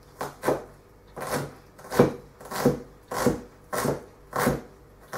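Chef's knife slicing through an onion and knocking on a chopping board, a steady series of about eight cuts, roughly one every two-thirds of a second, as the onion is finely diced.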